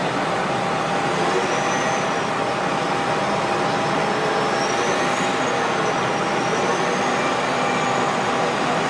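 Heavy diesel earth-moving machinery running: a steady, even noise with no knocks or breaks.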